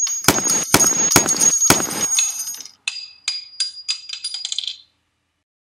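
Four gunshot sound effects about half a second apart, each with a high metallic ring, then a small piece of metal bouncing and tinkling, its bounces coming faster and faster until it comes to rest.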